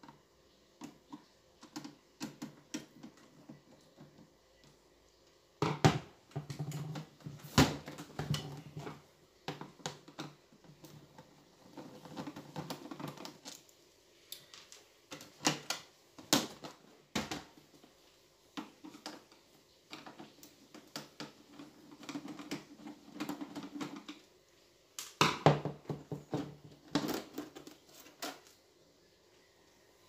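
Hands and a screwdriver working on a stereo unit's plastic casing: irregular clicks, taps and knocks as screws are taken out and the case is shifted and pulled off its metal chassis.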